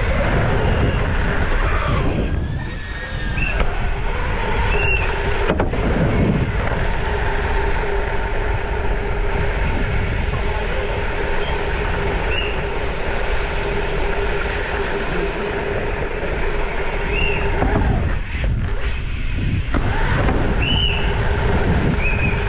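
Steady rumble of wind and rolling tyres on a mountain-bike rider's GoPro as he rides the course, briefly quieter about three seconds in and again near the end.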